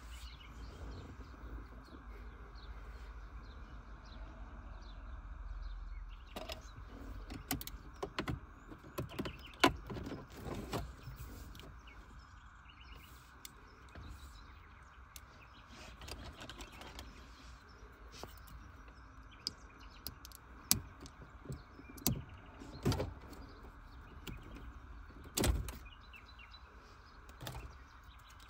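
Scattered clicks and knocks from working on a car door's power window switch and trim, over a steady background hiss.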